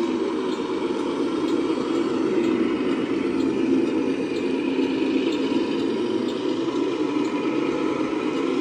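Radio-controlled model semi-truck, a Mercedes-Benz tractor unit pulling a trailer chassis, running with a steady engine-like drone as it drives across the floor.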